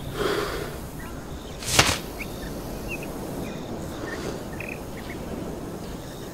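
Steady background hiss with one sharp crack about two seconds in, the loudest sound, and a few short, faint high chirps scattered after it.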